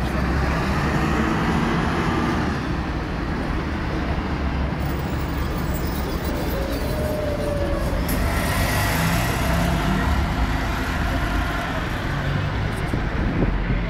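Steady road traffic on a busy city street, with a bus passing close by and its engine running.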